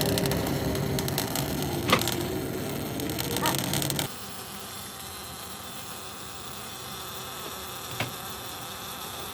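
A buzzing power tool or machine runs with a steady tone and a couple of knocks, then cuts off suddenly about four seconds in. A quieter steady hum carries on, with a single click near the end.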